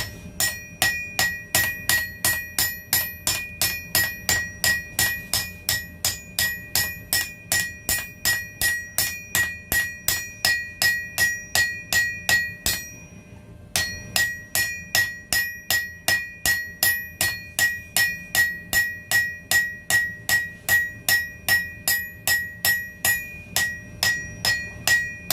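Hand hammer striking hot steel on an anvil in a steady rhythm of about two to three ringing blows a second. The hammering stops for about a second partway through, then resumes. This is forging a hammer-head blank: blending a forge-welded joint and smoothing the surface.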